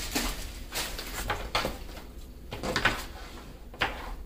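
Handling noise from a fabric camera backpack being moved and stood upright on a wooden workbench: rustling, with several short knocks and clicks, the sharpest near the end.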